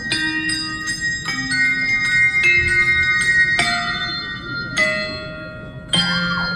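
Handbells played as a slow melody of single struck notes, about one a second, each ringing on after it is struck.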